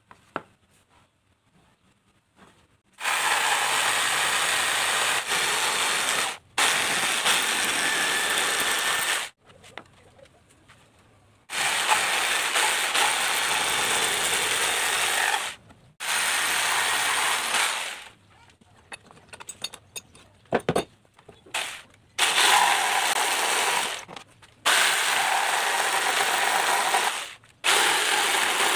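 Electric jigsaw cutting pallet wood in a series of runs a few seconds long, stopping briefly between them, with a few short stop-start bursts about two-thirds of the way through. The first few seconds are quiet apart from a single click.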